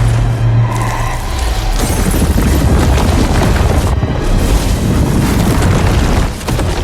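Film soundtrack of a magic duel: dramatic music under heavy booming blasts and a deep rumble from the spell effects. It is loud throughout, with a low hum that drops away after about a second.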